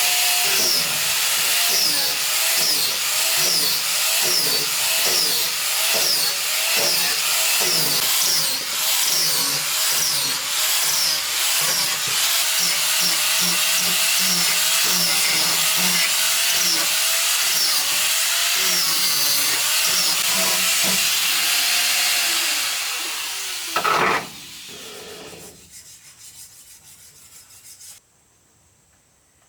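A power tool working wood, its pitch dipping and recovering about twice a second as it bites under load, then winding down and stopping near the end, followed by a sharp knock.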